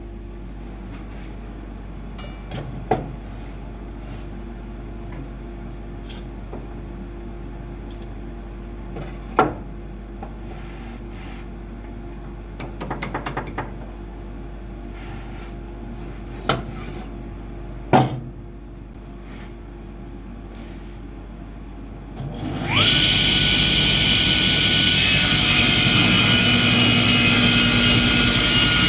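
A few sharp knocks and a short quick rattle of wood being handled, then, about 23 s in, a power tool's electric motor spins up with a rising whine and runs on steadily and loudly.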